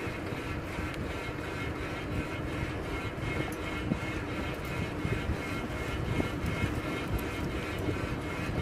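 Wind on the microphone and tyre rumble as a beach cruiser bicycle rolls along an asphalt road, with a few small knocks.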